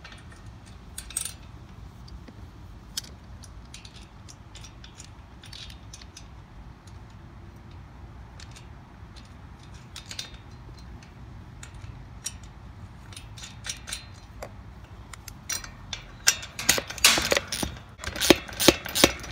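Light metallic clicks and clinks of a socket wrench and steel parts at a garden cart's wheel axle nut, sparse at first, then a quick, louder run of clicking near the end as the wrench is worked.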